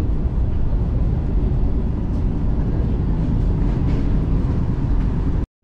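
Steady low rumble and hiss of a Vande Bharat Express (Train 18) electric train running at speed, heard from inside the passenger coach: wheel and track noise. It cuts off abruptly just before the end.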